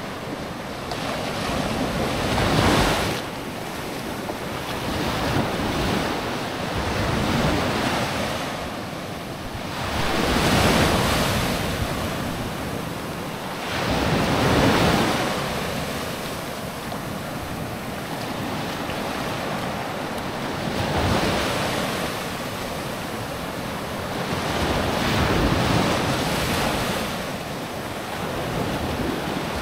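Sea waves breaking and washing up a sandy beach, surging every four seconds or so, with wind buffeting the microphone.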